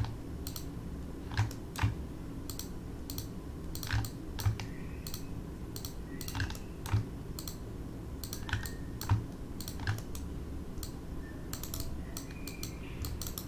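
Irregular clicking of a computer keyboard and mouse, about one or two clicks a second, as edges are cut into a 3D mesh in Maya.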